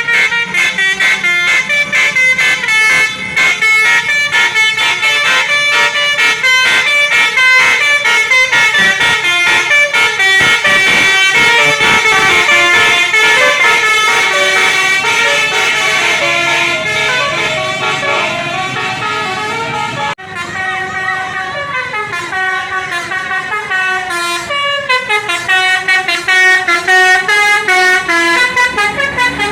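Basuri multi-tone 'telolet' bus horn playing a fast melody of short pitched notes, several a second. About two-thirds of the way through it breaks off abruptly and a different horn tune follows, with slower notes stepping and sliding up and down.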